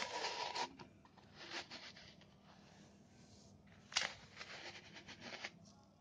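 A plastic measuring cup scooping and scraping through sand in a plastic tub: a gritty scraping hiss, loudest in the first second, with smaller scrapes after it and a sharp click about four seconds in.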